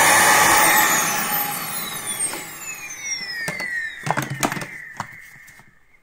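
Dyson cylinder vacuum cleaner running, being test-run after a blockage was cleared from it. About a second in its motor is switched off, and its whine falls in pitch as it winds down. A few sharp knocks from handling the machine come during the wind-down.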